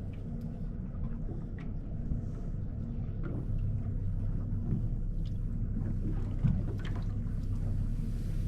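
Fishing boat's engine running with a steady low hum, with a few faint light clicks over it.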